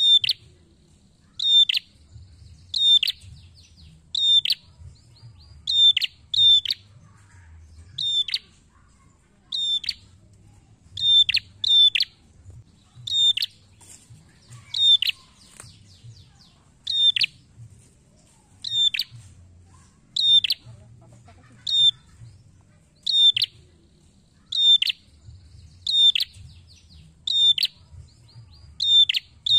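A tailorbird giving loud, sharp single chip calls over and over, about one every second or so and sometimes in quick pairs, each note high and dropping quickly in pitch.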